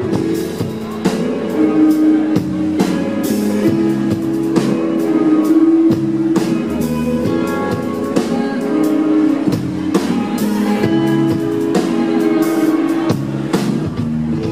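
Live rock band playing an instrumental passage: electric guitar holding sustained notes over a steady drum kit beat with bass.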